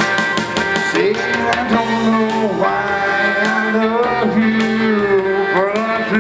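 A singer performing karaoke over a backing track, the voice sliding between notes over a steady accompaniment.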